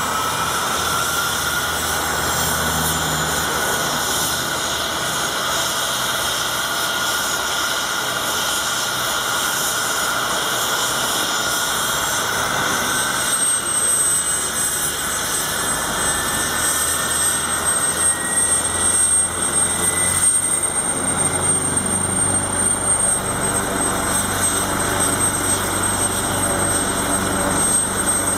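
AgustaWestland AW139 helicopter running on the ground with its main rotor turning, its twin turboshaft engines giving a high whine that steps higher about 13 seconds in. From about 18 seconds on the sound grows louder and choppier as the power comes up before lift-off.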